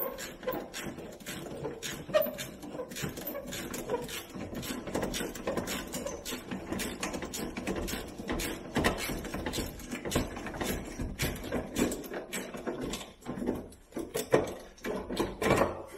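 Hand tool clicking and scraping on the metal clamps of a Humvee's air filter canister as the cover is unfastened: a string of irregular metallic clicks and clanks.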